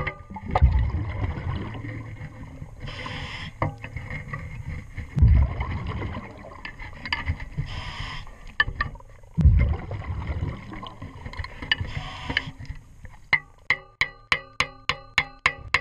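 Underwater: a diver's scuba regulator breathing in slow cycles, each exhale a low bubbling rumble and each inhale a hiss. Near the end comes a quick, even run of sharp metallic ticks, about three a second, from a metal tool worked on the propeller hub.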